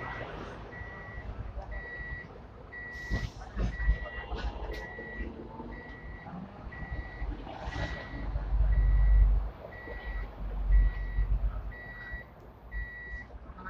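An electronic warning beeper sounding a short, steady high beep at an even pace of a little more than one beep a second, the pattern of a vehicle's reversing alarm. Under it is a low rumble of street traffic, which swells into a heavier engine rumble about eight seconds in.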